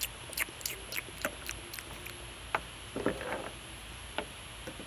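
A string of light, sharp clicks, about three or four a second for the first two seconds, then a few scattered clicks with a short crackly cluster about three seconds in.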